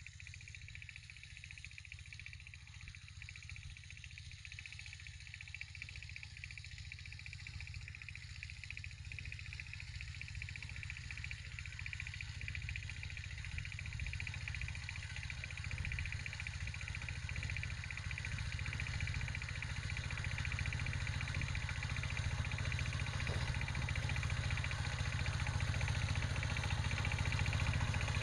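Power tiller's diesel engine running steadily, growing gradually louder as the machine drives closer.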